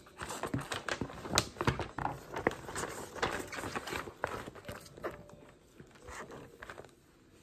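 Sheets of paper being handled, lifted and flipped over, rustling and crackling in quick irregular bursts. Busiest in the first few seconds, with the sharpest crackle about a second and a half in, then thinning out near the end.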